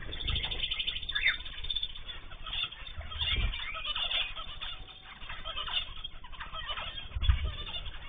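Mixed aviary of zebra finches, canaries and cockatiels chirping and calling over one another, with a fast trill in the first couple of seconds. Three short low thumps are heard, about a second in, halfway through and near the end.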